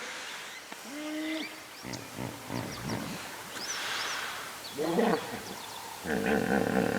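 Hippopotamus calling: a short held call about a second in, a louder call about five seconds in, and a longer call starting about six seconds in. Small birds chirp in between.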